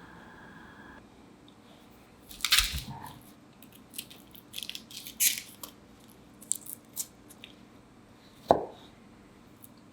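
Garlic clove being peeled by hand: scattered dry crackling and tearing of the papery skin. A thud with a rustle comes early, and a single sharp knock, the loudest sound, comes near the end.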